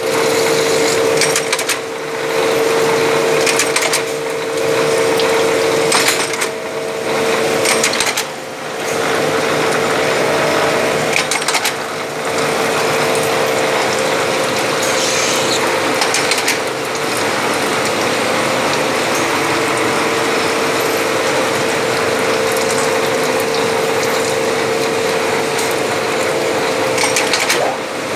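Index 25 automatic turret lathe running and cutting 303 stainless steel, a steady mechanical whine with clicking and rattling from its slides and turret. In the first half the sound changes every couple of seconds as the machine goes through its cycle, then it runs more evenly.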